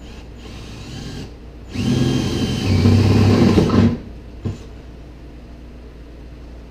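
Cordless drill running for about two seconds, boring a hole through the Jeep Wrangler JKU's sheet-metal cargo floor, its whine dipping slightly in pitch as the bit bites. A short click follows soon after it stops.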